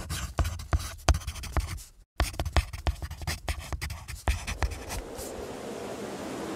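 Handwriting: quick scratching strokes of a writing tip on a surface, with a brief break about two seconds in. The strokes stop near the end, leaving a steady faint hiss.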